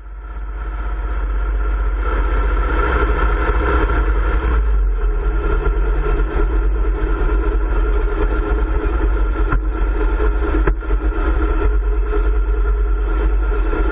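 A vehicle engine running steadily and loudly under a constant low hum, with two faint clicks about two-thirds of the way through.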